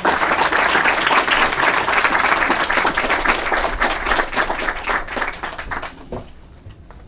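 Audience applauding: many hands clapping together, loud at first and dying away about six seconds in.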